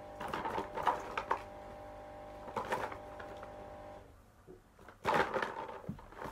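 Clattering and rustling of small plastic toys being handled and rummaged through, a few scattered bursts with a louder one near the end, over a steady hum that stops about four seconds in.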